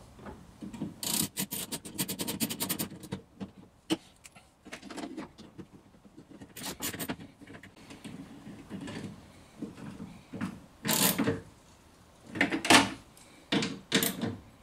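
Hand tool clicking and metal parts knocking as the door lock is screwed into a car door. A quick run of clicks comes about a second in, followed by scattered knocks and rubs.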